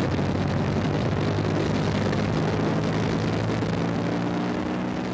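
KTM 1290 Super Duke R's 1301 cc V-twin engine pulling at speed on track, heard from an onboard camera with wind rushing over the microphone. The engine note holds steady, then fades away near the end.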